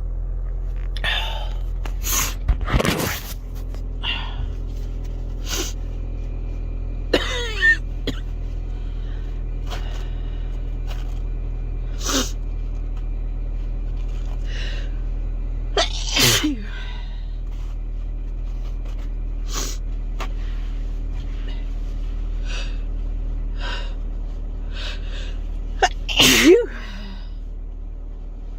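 A person sneezing hard four times, several seconds apart, each with a falling voiced "choo", with fainter short sharp sounds between them. Under it runs the steady low hum of a car.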